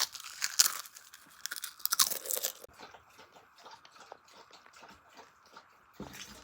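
Slime mixed with crunchy chips being squeezed and worked, giving crackling, crunching clicks, loudest in the first two and a half seconds and fainter after.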